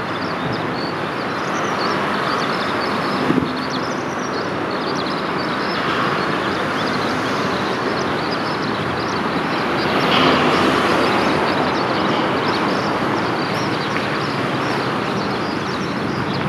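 Forest river flowing: a steady rush of water.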